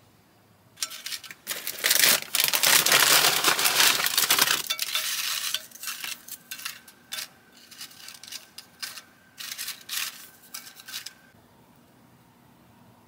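Plastic bag of tortilla chips crinkling and chips rattling into a glass casserole dish as they are laid in by hand. A loud stretch of steady rustling fills the first few seconds, then shorter crinkles and clicks come on and off.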